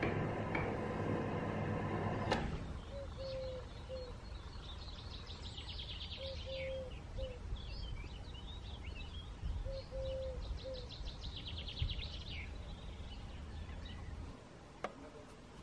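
A steady low hum with ticking cuts off sharply about two seconds in and gives way to birdsong. A songbird sings rapid high trills, and a dove coos low, three or four notes at a time, repeated every few seconds, over a low outdoor rumble.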